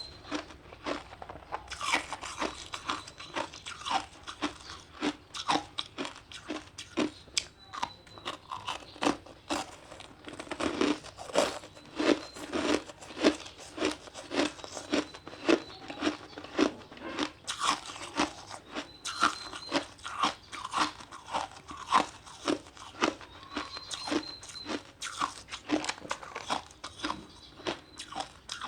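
Ice being bitten and chewed close to the microphone: a steady run of sharp crunches, about one or two a second, with softer grinding between them.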